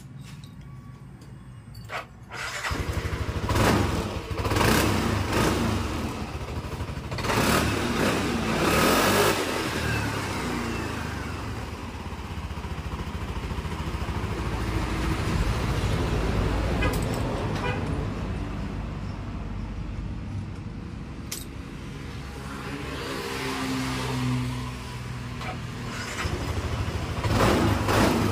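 Yamaha NMAX scooter's single-cylinder fuel-injected engine starting about two and a half seconds in, then revved in several short throttle blips, settling to a steady idle, and revved again near the end. It runs without sputtering on a new fuel pump motor and filter, which cured its weak fuel pressure.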